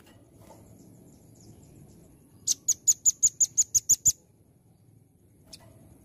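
Velvet-fronted nuthatch calling: a fast run of about ten sharp, high chips, about six a second, lasting under two seconds. Fainter scattered chips come before it.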